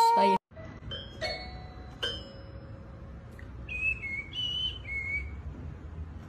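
The end of a cat's long, drawn-out meow, falling in pitch and cut off abruptly about half a second in. After it come faint short high plinks and, past the middle, a brief run of whistle-like notes.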